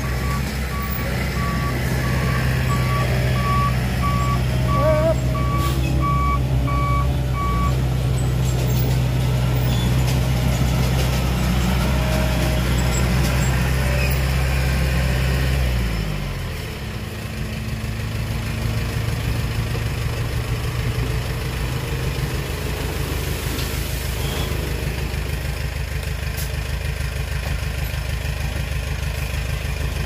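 Heavy construction vehicle's diesel engine running under steady revs, with its reversing alarm beeping about one and a half times a second for the first several seconds. About halfway through, the engine revs drop away and it settles to a lower, slower running note.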